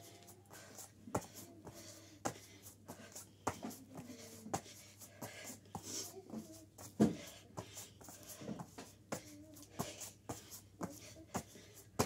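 Hands and forearms tapping and thumping on a foam floor mat during plank up-downs, an irregular soft knock about once or twice a second with scuffing in between; the loudest thump comes about seven seconds in.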